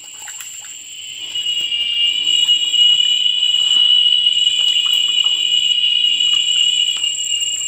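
An insect's steady, shrill high-pitched call. It swells in loudness over the first two seconds and then holds, with a fainter, higher steady tone alongside.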